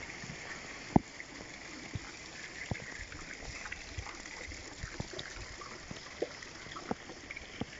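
Steady trickle of water from garden fountains and narrow water channels, with scattered light clicks and one sharper knock about a second in.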